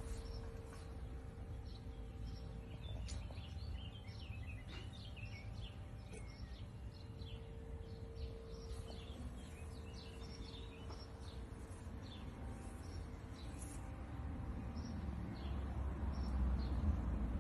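Small birds chirping and twittering in many short high calls, over a low rumble that grows louder near the end.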